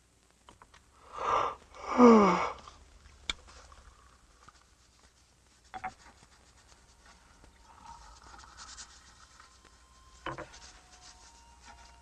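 A person's voice: a short cry about a second in, then a louder cry sliding down in pitch, followed by faint clicks and rustling.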